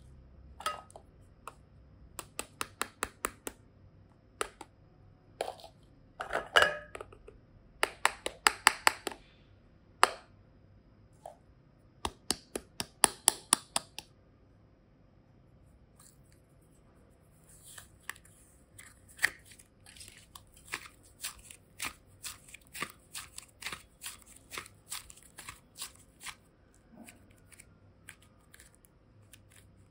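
Hard plastic containers clicked and tapped by fingers in quick runs of sharp clicks, several to a run, for about the first half. After a pause, a longer stretch of softer, faster clicking with a hiss as soft clay is pulled from its mould and stretched.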